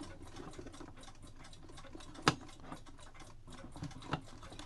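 Antique cuckoo clock movement ticking steadily in quick, even beats. A sharp click comes about two seconds in and a couple of softer knocks near the end, from handling at the clock's hands.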